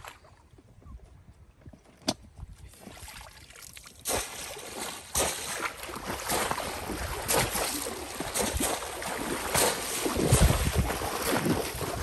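Water splashing as bamboo polo fish traps are plunged down into shallow pond water and legs wade through it. It is fairly quiet at first with a single sharp click about two seconds in, then from about four seconds in there is continuous, irregular splashing.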